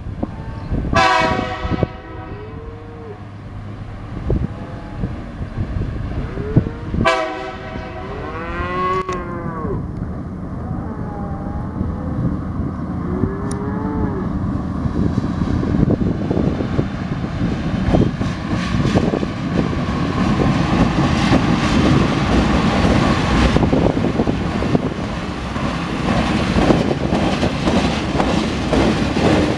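TasRail TR-class diesel-electric freight locomotives approaching and passing. Their engine rumble and wheel clatter build up steadily through the second half. Two pitched horn blasts sound about a second and about seven seconds in, and cattle moo several times in the first half.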